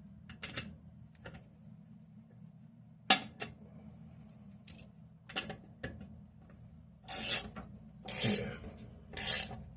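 Klein pass-through ratchet clicking as it tightens a nut on a toilet bolt against porcelain. First comes a few scattered clicks, then three quick half-second runs of ratcheting near the end.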